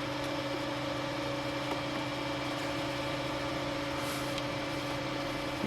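3D printer's cooling fans running, a steady hum with a fixed tone.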